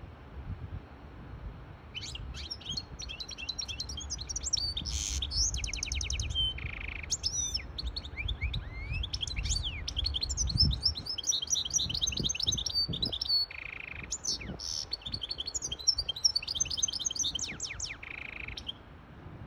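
Caged goldfinch hybrid singing a long, fast twittering song in three phrases, starting about two seconds in, with a rapid trill in the first phrase and a short buzzy note closing each. A low rumble runs underneath through the first half.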